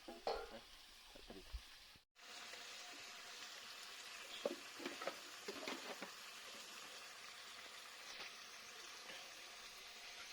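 Duck curry frying in a pan, a steady sizzle with a few scrapes of a spoon stirring it. The sound cuts out briefly about two seconds in.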